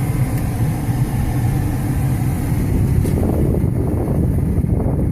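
Car running, heard from inside the cabin: a steady low engine and road rumble, with a little extra mid-range noise a few seconds in.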